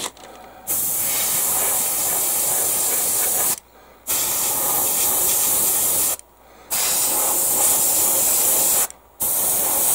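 Airbrush spraying paint at turned-down air pressure: a steady hiss in four runs of two to three seconds each, broken by three short pauses.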